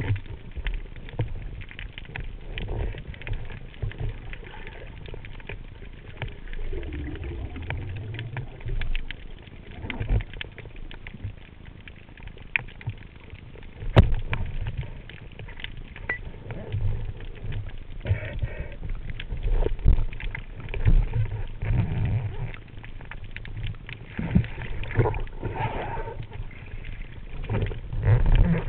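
Underwater sound picked up through a camera housing during a spearfishing dive. It is a low rumble of water movement with scattered clicks and knocks, and one sharp click about halfway through.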